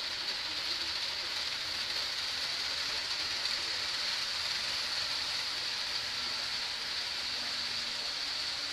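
Steady high-pitched hiss of background room noise, even throughout with no distinct clicks or events.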